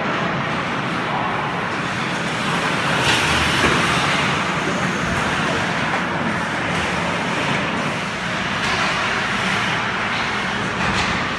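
Ice hockey game sound at the rink: a steady wash of skate blades on ice, sticks and players moving, with a short louder rush of noise about three seconds in.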